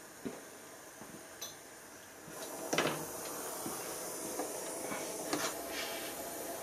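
A few light clicks of metal tools, then a sharp clatter as a tinned metal ring is set down on a fire brick about three seconds in. A steady hiss, typical of a gas soldering torch flame, starts just before the clatter and carries on under a few smaller knocks.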